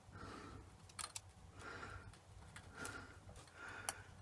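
Faint light clicks and soft rubbing of a Myford Super 7 lathe's gear train being turned by hand, with a few sharp ticks.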